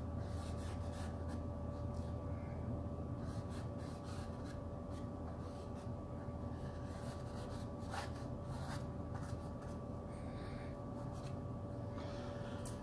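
Faint, scattered scrapes of a paintbrush laying black oil paint onto a stretched canvas, over a steady electrical hum.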